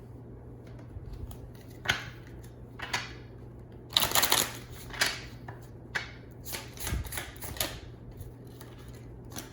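Tarot cards being shuffled and handled, giving a series of short, sharp papery bursts about once a second, the longest run about four seconds in.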